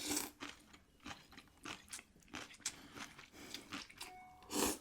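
Close-up crunchy biting and chewing of raw cucumber noodles. A loud bite comes at the start, then a run of short wet crunches, and a louder rush of noise near the end.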